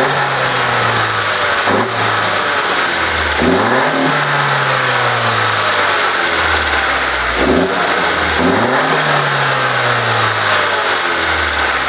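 Honda Civic 1.5 L turbocharged four-cylinder (L15B7) with a cold air intake, free-revved while stationary: about five quick throttle blips, each climbing fast and sinking back slowly toward idle. On each lift the turbo bypass valve is audible.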